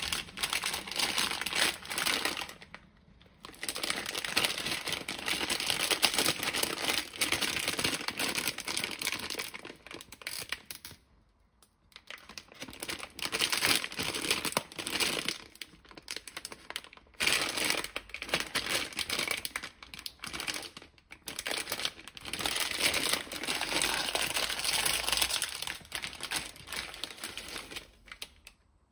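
Plastic instant-noodle wrapper crinkling as it is handled, turned over and opened, in stretches of crackling broken by short pauses.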